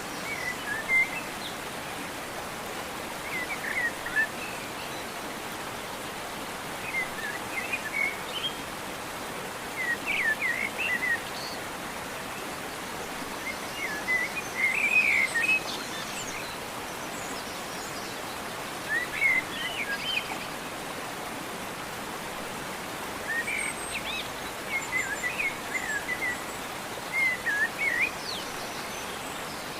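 A songbird singing short chirping phrases, one every three or four seconds, over a steady background hiss.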